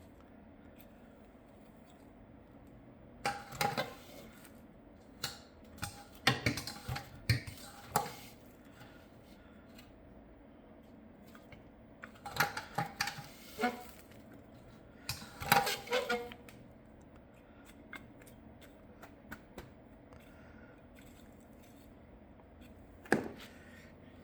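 Scattered clicks and light knocks in short clusters, a few seconds apart, like objects being handled and set down in a small room.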